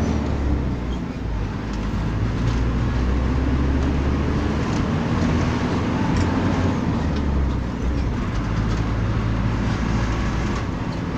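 Motor vehicle engine running steadily with road noise, heard while riding along.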